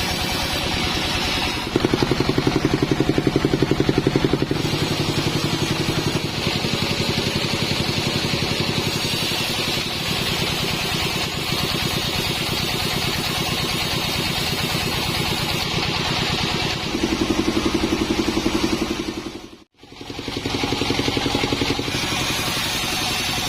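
Sawmill machinery running steadily with a fast, even engine-like pulse: the modified band saw rig for sawing teak. The level steps up and down a few times and drops out sharply for a moment about twenty seconds in.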